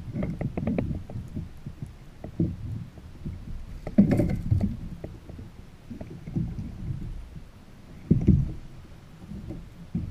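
Small waves lapping and slapping against a plastic sit-on-top kayak hull, heard through a camera fixed to the kayak as irregular low thuds. There is a sharper knock about four seconds in and another near eight seconds.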